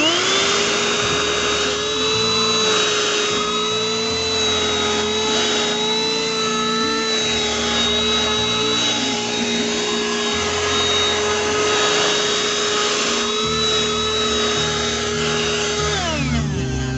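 Tylex XV01 handheld car vacuum cleaner switched on: its motor spins up quickly to a steady high whine, runs, and is switched off near the end, winding down.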